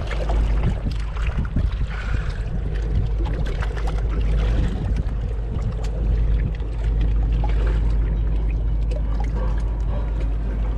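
Wind buffeting the microphone as a steady low rumble, over a wash of moving seawater, with scattered small clicks.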